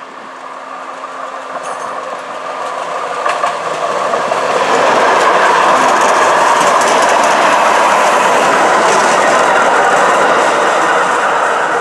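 Tyne and Wear Metro train (a Metro-Cammell Metrocar set) running past close by. Its wheel and running noise builds steadily as it approaches, stays loudest through the middle while the cars go by, and begins to fade near the end.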